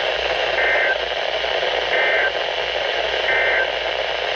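Three short bursts of Emergency Alert System digital data tones, the end-of-message code that closes an alert, evenly spaced a little over a second apart, over steady radio static.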